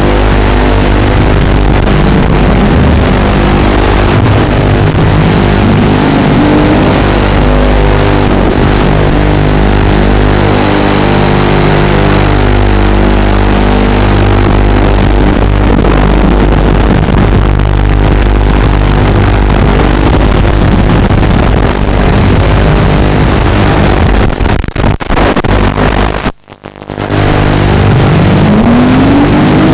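FPV quadcopter's electric motors and propellers whining steadily under throttle, with pitch climbing on throttle punches. About 26 seconds in the sound drops away sharply for about a second as the throttle is cut, then spools back up with a rising whine.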